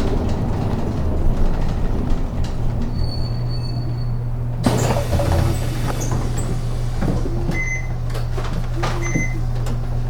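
Inside a city bus: the engine's steady low hum. About halfway through, a sudden rush of air-like noise sets in, then clicks and two short high beeps, typical of the bus doors opening at a stop.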